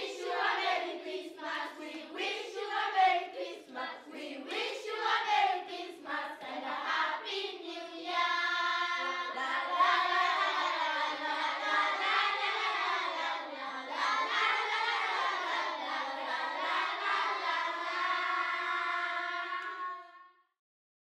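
A group of children singing together. The first several seconds are quick, rhythmic phrases; from about eight seconds in they hold longer notes. The singing stops suddenly shortly before the end.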